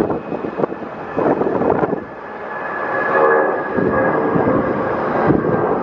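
Boeing 757 freighter's two jet engines at takeoff thrust during the takeoff roll and rotation: a continuous roar, with a steady engine whine rising out of it about three seconds in. Wind gusts buffet the microphone.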